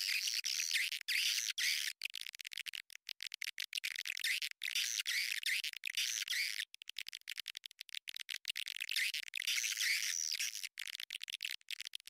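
Edible-nest swiftlets twittering: a dense, continuous chatter of high, buzzy chirps, the kind of swiftlet call used as a lure to draw the birds to a swiftlet house. The chatter drops out for split seconds many times.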